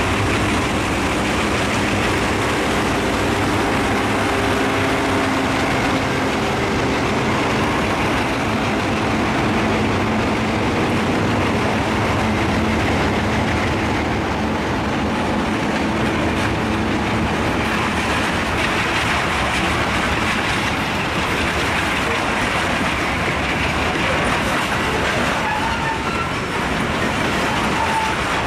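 Delaware Lackawanna Alco diesel locomotives pass under load, their engines running with a steady drone that fades after about ten seconds. Then covered hopper cars roll by with wheels clacking over the rail joints, and a few faint wheel squeals come near the end.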